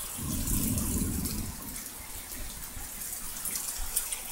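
Heavy rain falling steadily, an even hiss of water, with a low rumble in the first second or so.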